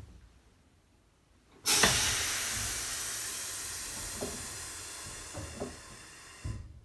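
Compressed air hissing out of a streetcar's self-lapping foot brake valve, starting suddenly and fading slowly over several seconds as brake-cylinder pressure vents off, a sign of the air brakes being released. A low thump comes near the end.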